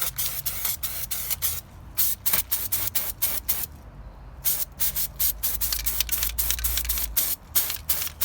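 Aerosol copper grease spray hissing in many short spurts, several a second, with a few brief pauses.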